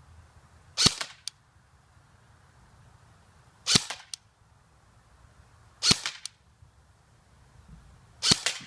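An airsoft gun fired in four single shots, each a sharp crack, spaced two to three seconds apart. A fainter click follows most shots a few tenths of a second later.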